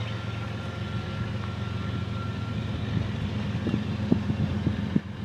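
Union Pacific diesel locomotive leading a freight train, its engine a steady low drone that grows louder as it approaches, with a few sharp clicks of wheels on rail joints in the second half.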